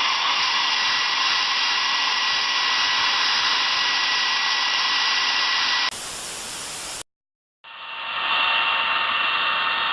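Electric hair dryer blowing steadily. About six seconds in it gives way to a second of flat hiss and a brief dead silence, then a hair dryer's steady blowing fades back in.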